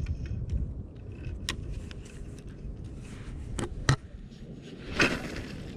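Low rumble of wind on the microphone, with a few sharp clicks and knocks from a spinning reel and rod being handled.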